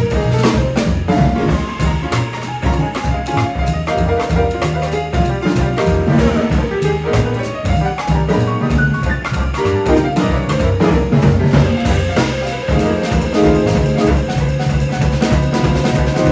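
Live jazz combo playing an up-tempo boogaloo tune: piano and electric hollow-body guitar over bass and a drum kit keeping a busy groove.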